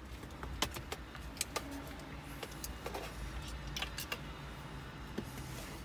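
Faint scattered clicks and light rattles of small parts being handled, over a low steady rumble.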